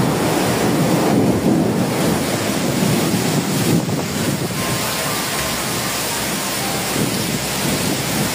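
Strong wind buffeting the microphone: a steady, loud rushing noise.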